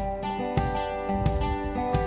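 Background music led by acoustic guitar, plucked and strummed notes in a steady pattern.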